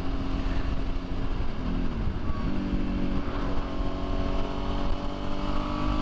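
Suzuki V-Strom 650's V-twin, fitted with a KTM exhaust, running steadily at cruising speed under a rush of wind and road noise. Its note dips briefly about two seconds in, then holds steady again.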